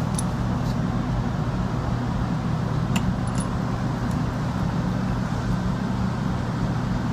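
Steady low machinery hum with a few pitches held unchanging, with a few faint clicks of metal parts and tools being handled.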